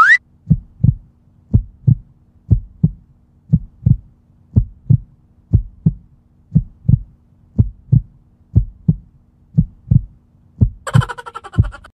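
Heartbeat sound effect: a steady double thump, lub-dub, about once a second, over a faint low hum. A short rising whistle glide sounds right at the start, and a brief buzzy electronic burst cuts in near the end.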